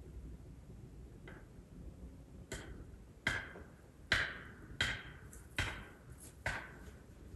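Seven sharp strikes, each with a short ringing tail. The first, about a second in, is faint; the other six come steadily about three-quarters of a second apart from about two and a half seconds in.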